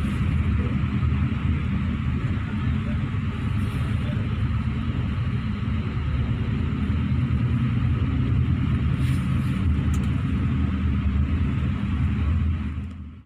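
Steady engine and road rumble of an intercity coach, heard from inside the passenger cabin while it drives along; it fades out sharply at the very end.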